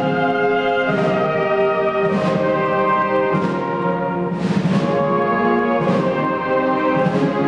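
Brass band music in a large church: a slow march of sustained brass chords, with a percussion stroke about every 1.2 seconds.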